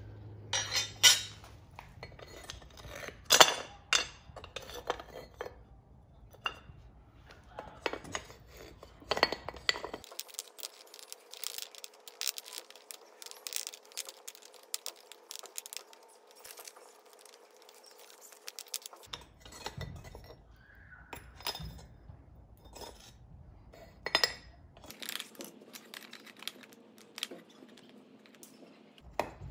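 Metal clinks and knocks as freshly cast aluminum ingots are tapped and knocked out of their molds and set down on firebrick; one mold holds its ingot fast and needs repeated knocking. The blows come in irregular clusters with short ringing, the loudest about a second and three and a half seconds in.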